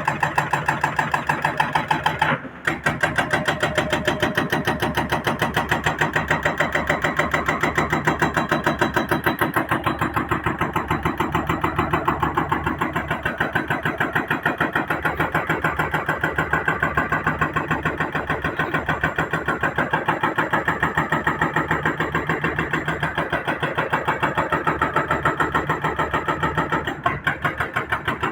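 Excavator's diesel engine running steadily with a fast, even pulse, briefly breaking off twice.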